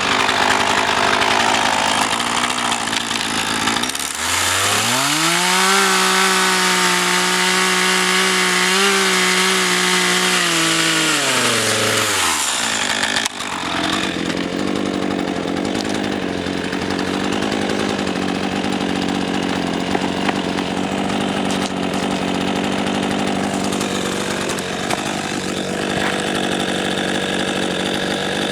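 RedMax GZ400 two-stroke chainsaw running at high throttle through firewood logs. About four seconds in, the engine pitch climbs, holds high for several seconds and drops back about twelve seconds in, then the saw carries on cutting.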